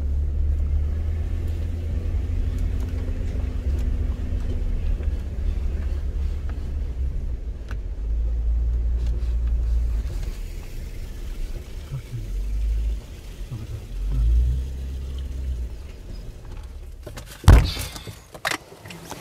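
Low rumble of a car driving, swelling and easing several times. A single sharp knock comes near the end.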